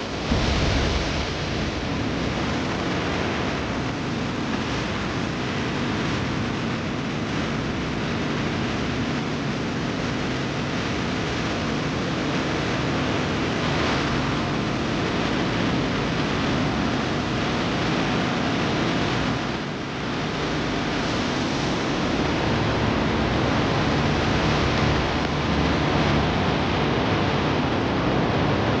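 Steady rushing noise of a river in flood, with a short dip about twenty seconds in.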